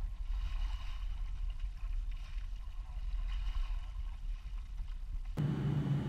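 Steady low rumble, as aboard a ship under way. About five seconds in it gives way abruptly to a denser, steady machinery hum.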